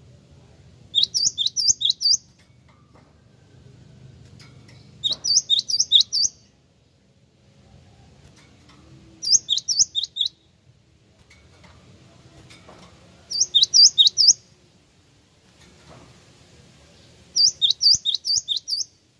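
Gelatik wingko (great tit) calling: five bursts of four to six quick, high, repeated notes, each burst about a second long, spaced roughly four seconds apart.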